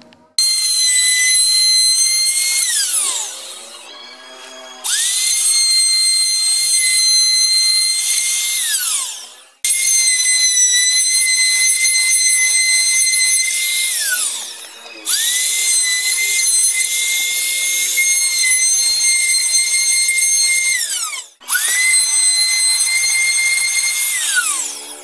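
Electric trim router switched on and off five times in short runs. Each time the motor spins up at once to a steady high whine, holds a few seconds, then winds down with a falling pitch.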